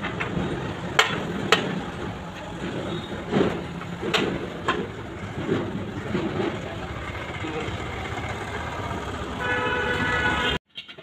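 A few sharp knocks of tools on a Mahindra 575 DI tractor's front axle over a steady rumble of road traffic. A vehicle horn honks for about a second near the end, and then the sound cuts off suddenly.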